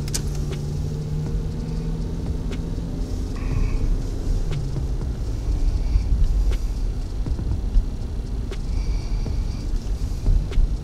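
Low rumble of a car's engine and tyres heard from inside the cabin as the car is driven slowly, pulling in, with a few faint ticks.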